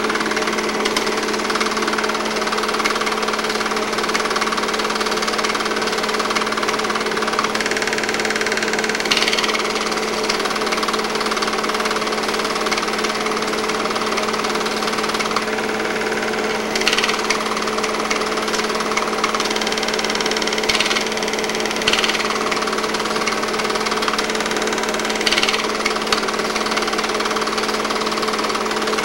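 Film projector running: a steady motor hum under the continuous mechanical clatter of the film-advance mechanism, with a few brief louder rattles.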